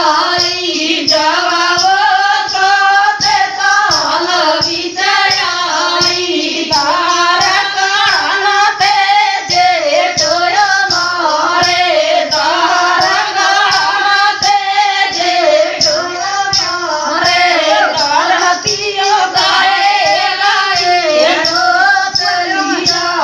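Women singing a rustic Hindi folk dance song (naachgeet) over a steady percussion beat.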